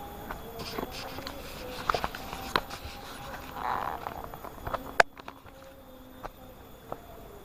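Footsteps and scuffs on a rough trail: irregular clicks and knocks, with one sharp click about five seconds in.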